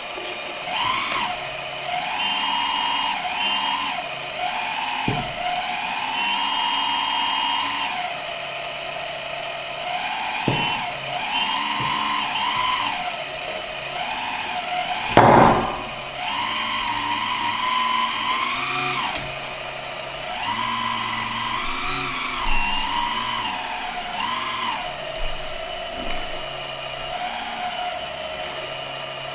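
Hydraulic pump of a 1:14 Liebherr R 956 RC excavator whining, its pitch rising and falling in spells of a few seconds as the hydraulic functions, including the quick-coupler cylinder, are worked. A few light clicks and one sharp knock about halfway through.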